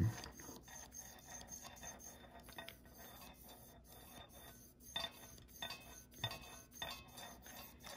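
Faint clicks and light sliding from an Alps K Series fader carriage being pushed along its metal rails to work in freshly applied silicone oil, with a few sharper clicks in the second half.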